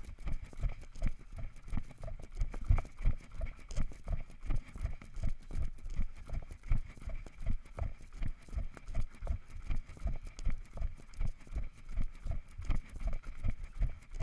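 Running footsteps of the runner carrying the camera: steady low thuds at about three steps a second, jolting the camera.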